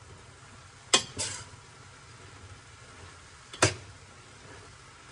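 Metal spoon stirring green beans and chicken in a stainless steel Saladmaster electric skillet, striking the pan with sharp metallic clinks: two close together about a second in and one more about two and a half seconds later.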